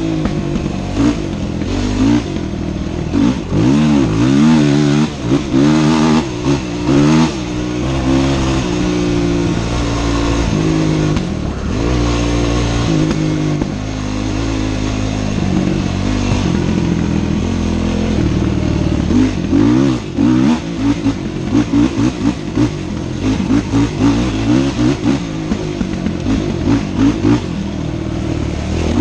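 Dirt bike engine revving up and down under throttle as it is ridden, its pitch rising and falling again and again through the whole stretch, choppier near the end.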